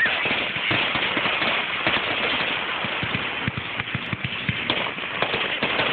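Aerial fireworks going off in quick, irregular succession: a dense run of small bangs and crackles, heard through a phone's microphone.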